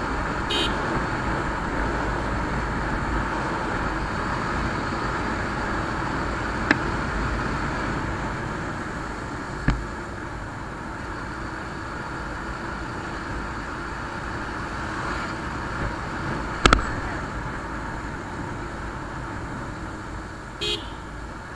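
Bajaj Pulsar motorcycle riding at speed: steady engine and wind noise, with a few sharp knocks. Two short horn beeps, one right at the start and one near the end.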